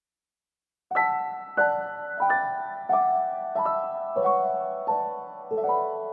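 Background piano music: after about a second of silence, a slow melody of single notes struck roughly every two-thirds of a second, each ringing and fading away.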